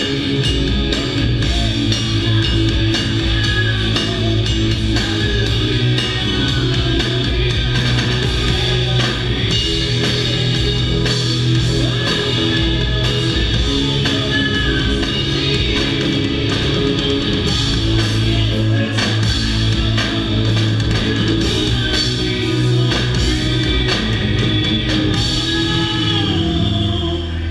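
Rock band playing live, electric guitars over a drum kit, steady and loud.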